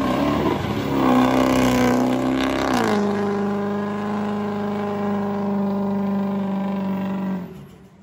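Engine revving, held at a high steady pitch, then dropping to a lower steady pitch about three seconds in, and fading out near the end.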